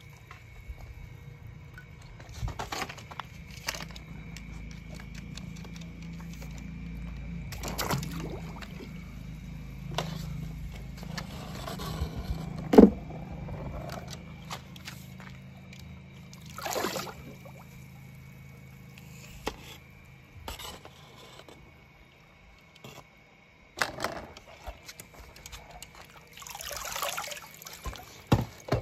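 Pool water sloshing and splashing as a skimmer net on a pole is swept through a swimming pool, with scattered scrapes, a few small knocks and one sharper knock about halfway through. A low steady hum stops about three quarters of the way through.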